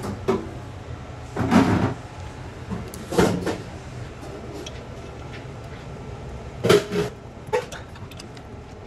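Irregular knocks and rattles from tools and gear being handled against a freezer's sheet-metal cabinet, a few separate clusters over a steady low hum.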